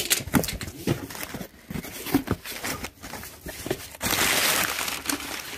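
A cardboard box being opened: tape cut and flaps pulled back with short scuffs and knocks, then from about four seconds in, crumpled packing paper rustling loudly as hands dig into it.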